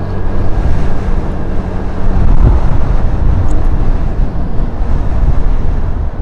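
Riding a motorcycle in strong wind: wind buffeting the microphone, with the engine running underneath.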